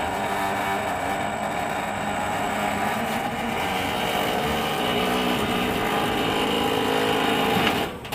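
Forklift running as it works a load onto a trailer: a steady motor and hydraulic drone with several held tones, cutting off suddenly near the end.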